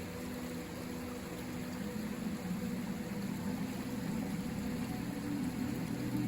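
River water rushing steadily, with a low droning motor hum underneath that grows louder towards the end.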